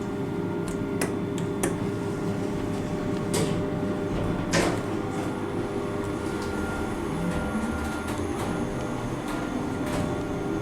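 Kone MonoSpace machine-room-less lift in operation: a steady hum with several sharp clicks and knocks, the loudest about four and a half seconds in.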